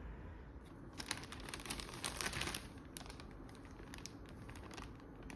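Crinkling and crackling of wrapping being handled, in a cluster about a second in and a few scattered clicks near the end, over a steady low hum.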